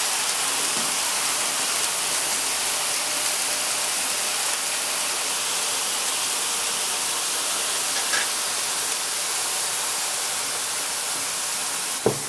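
Liquid nitrogen poured from a dewar onto a ball of putty, hissing steadily as it boils off on contact. A couple of light knocks come near the end.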